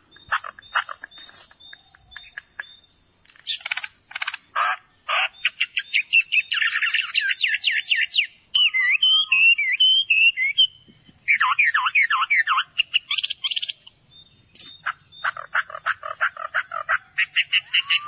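Forest songbirds calling and singing: quick runs of sharp chirping notes, with warbled whistling phrases in between, over a steady high hiss.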